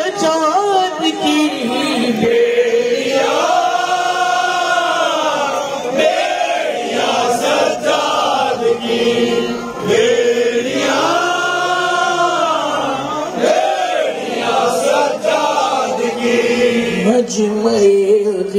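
Noha recitation: a man chants an Urdu mourning lament into a microphone in long, drawn-out phrases, with a crowd of mourners' voices joining the chant.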